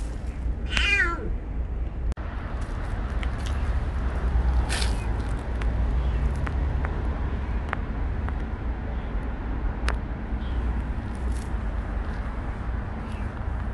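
Kitten meowing: one clear high meow that falls in pitch about a second in, then a few fainter calls, over a steady low rumble and a few light clicks.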